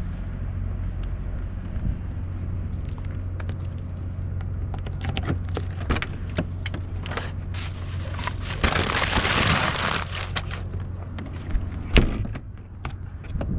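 Semi truck's diesel engine idling with a steady low hum, under scattered clicks and knocks of things being handled in the cab. A rustling burst comes about nine seconds in, and a sharp knock a few seconds before the end.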